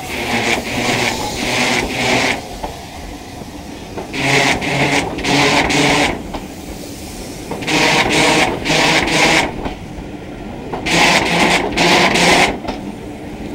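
Wheels of passenger coaches rolling past close by as a steam-hauled train pulls away, clattering over the rail joints in clusters of quick clicks about every three seconds as each coach's bogies pass.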